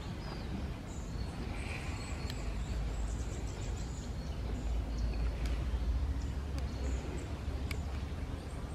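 Outdoor ambience: a steady low rumble with faint, scattered high-pitched bird chirps and a few sharp clicks.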